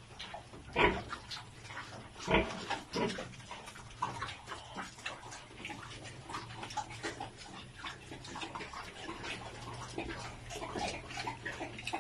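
Two young pigs eating feed off a concrete floor: rapid snuffling and crunching with short grunts, loudest about one and two and a half seconds in.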